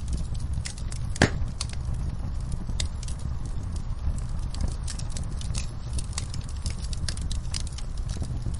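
Wood logs burning in a fireplace: a steady low rumble of the fire with irregular crackles and snaps, and one louder pop about a second in.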